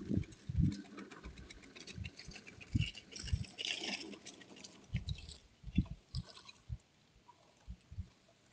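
Agri-Fab push lawn sweeper rolling over the lawn: light crackling and rattling with irregular low thumps.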